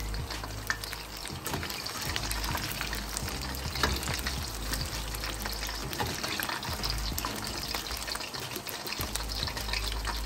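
Batter-coated chicken pieces frying in hot oil over medium heat: a steady crackling sizzle with scattered louder pops.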